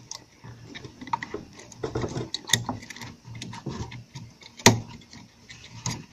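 An Osram xenon headlight bulb being worked out of its headlight mount by hand, giving irregular small plastic and metal clicks and taps. The sharpest click comes about halfway through and another just before five seconds in.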